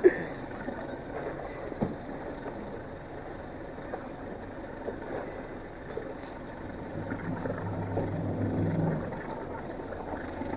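An engine runs over a steady background noise. Its low hum grows louder about seven seconds in and eases off about two seconds later.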